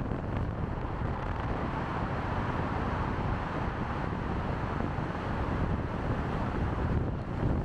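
Steady wind and road noise from a moving car, with wind rushing over the microphone.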